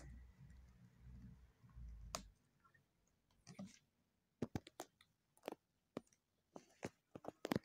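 Domestic turkeys pecking at sprouted wheat grass in a plastic crate: faint, sharp, irregular clicks of beaks, about a dozen in the last three seconds. A low rumble fills the first two seconds.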